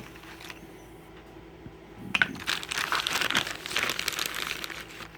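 Plastic packaging crinkling as it is handled, starting about two seconds in and going on for about three seconds.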